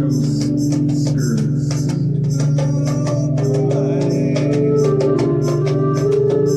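Improvised instrumental music: sustained organ-like chords over a steady, quick percussion pulse, with gliding, bending tones weaving through in the middle.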